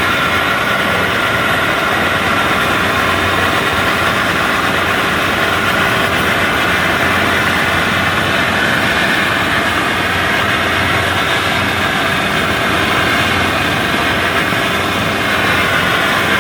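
Kubota WD102PRO rice combine harvester's engine running steadily as the machine drives along the road, a loud, even drone with no changes.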